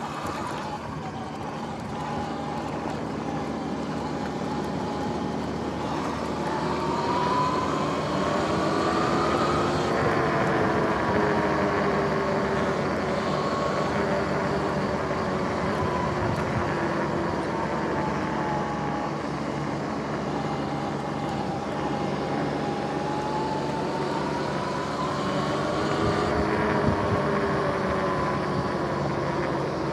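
Sur-Ron X electric dirt bike's motor and drivetrain whining, its pitch rising as the bike speeds up and falling as it slows, twice over, under a steady rush of wind and tyre noise.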